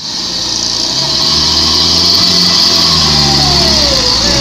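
Heavily loaded truck's engine running under load, over a strong steady high hiss, with a falling whine in the second half.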